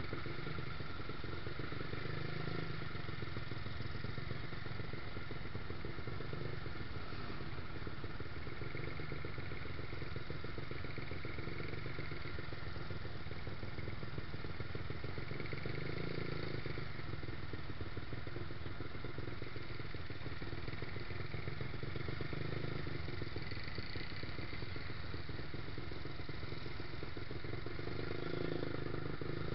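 Yamaha YZF-R125's single-cylinder four-stroke engine running at low revs as the bike creeps through slow traffic, the note swelling slightly a few times with small openings of the throttle.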